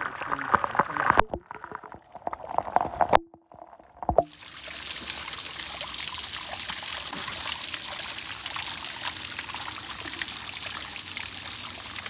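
Waterfall: a steady hiss of falling and splashing water that sets in abruptly about four seconds in, after a few seconds of brief, broken-off knocks and clicks.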